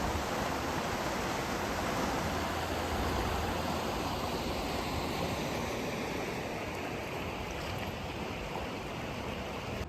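A river's flowing water rushing steadily, an even hiss that eases slightly toward the end.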